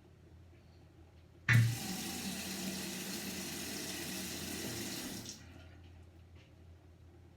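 Old squeaky sink faucet turned on about a second and a half in with a sharp, loud squeal, then water running steadily from the tap for about four seconds before it is shut off.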